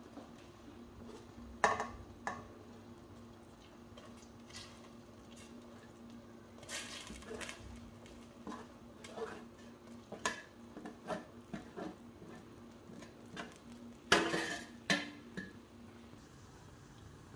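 A metal spoon scraping and tapping on a metal tray and the rim of a stainless steel pot as chopped molokhia leaves are pushed off into the broth, in a string of short clinks and scrapes. A louder clatter of metal on metal comes about fourteen seconds in.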